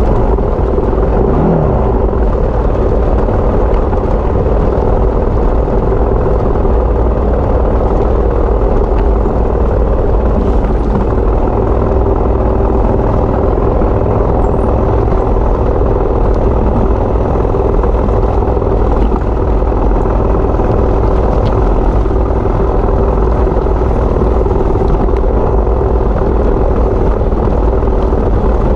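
Yamaha WR250 dirt bike's single-cylinder four-stroke engine running steadily under a heavy low rumble, with a constant engine note and no breaks.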